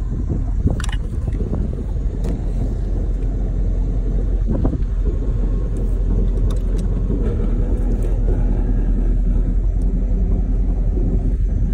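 Supra boat's inboard engine running steadily at low revs, a continuous low rumble.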